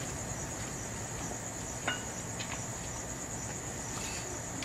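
Crickets trilling steadily in the background as a high, even tone, with a single light click about two seconds in.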